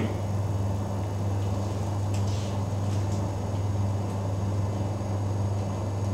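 Steady low electrical hum with a faint hiss, unchanging throughout, and a few faint ticks about two to three seconds in.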